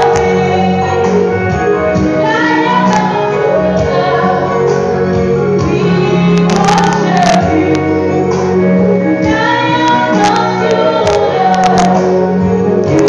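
A woman singing a gospel song into a microphone, joined by two women singing backing, amplified in a hall, over steady low held notes.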